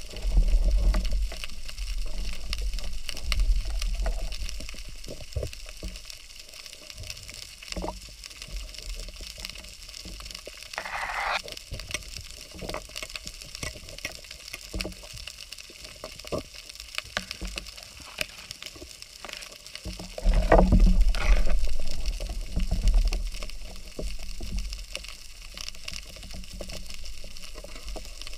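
Underwater sound from a speargun-mounted camera: a steady faint crackle of many small clicks, with heavy low water turbulence against the housing in the first few seconds and again about two-thirds of the way through.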